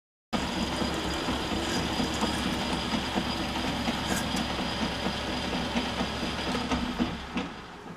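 Metal lathe running while a twist drill in a tailstock drill chuck is pecked into the end of the spinning workpiece, with irregular clicks from the cut; the lathe is switched off near the end and the sound drops away.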